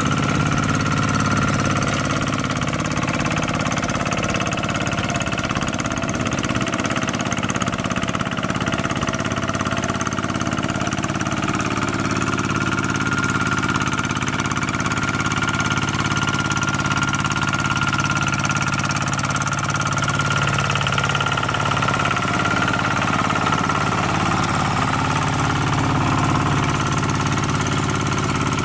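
Kubota RT140 Plus hand tractor's single-cylinder diesel engine running steadily under load while tilling mud, with a thin high whine running over the engine note.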